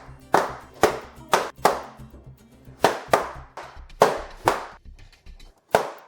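Balloons popping one after another, about nine sharp bangs at uneven intervals, often in quick pairs, over faint background music.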